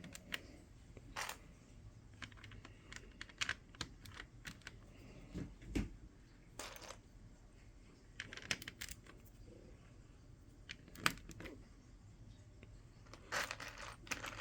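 Plastic Lego bricks clicking and clattering as they are handled and pressed into place, in scattered, irregular clicks with a few louder rattles of pieces.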